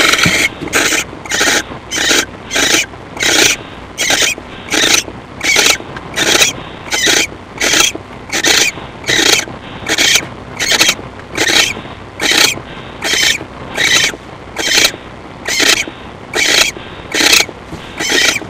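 Barn owl in a nest box giving long hissing snore calls over and over, about one every 0.7 seconds, in an even rhythm. This is the food-begging snore that barn owls use.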